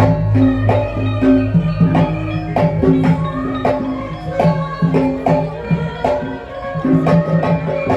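Music with steady percussion strokes over sustained low pitched notes: the accompaniment for a pencak silat seni routine.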